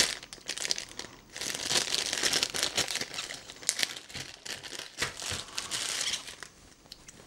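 Clear plastic bag crinkling as it is handled and opened around an HDMI cable, in uneven bursts with a short lull about a second in, dying away near the end.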